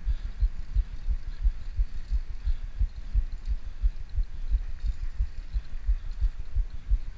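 Wind buffeting the microphone of a handlebar-mounted GoPro on a moving bicycle: irregular low thumps several times a second over a faint hiss of air and tyres.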